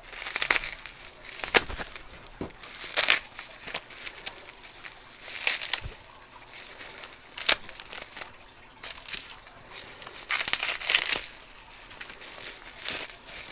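Plastic bubble wrap crinkling and rustling as hands unwrap keys from it, in irregular bursts every second or two with a few sharp crackles.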